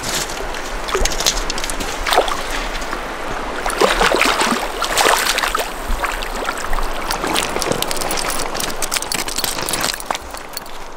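A fish splashing and thrashing in shallow river water over pebbles, in repeated irregular splashes, against the steady rush of the shallow stream.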